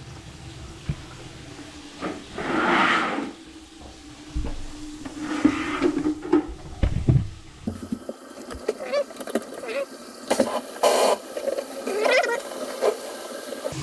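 Water running from a sink faucet in uneven gushes, with knocks and handling noises.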